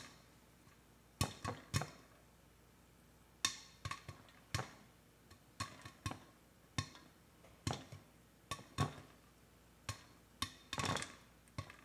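Popcorn kernels popping in the Ninja Foodi's hot inner pot: sharp single pops at irregular intervals, about one or two a second, picking up a little near the end as the batch nears rapid popping.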